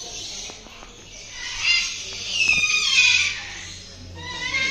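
Caged birds calling: a few high-pitched calls, some falling in pitch.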